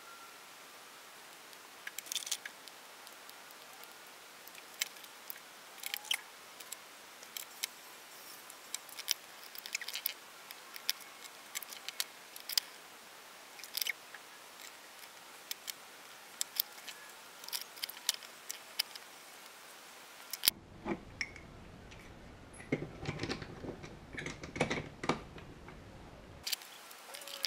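Small scattered clicks and snips of pliers and cutters cutting and stripping a speaker's 3.5 mm audio cable, to re-fit its damaged plug. About 20 seconds in, a run of louder handling knocks follows.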